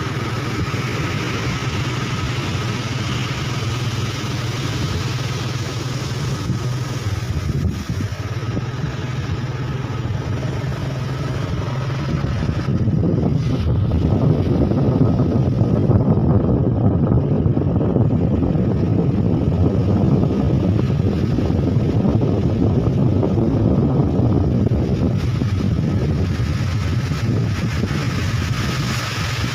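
Motorcycle engine running steadily while riding, under a rushing noise that gets louder from about halfway through and eases off near the end.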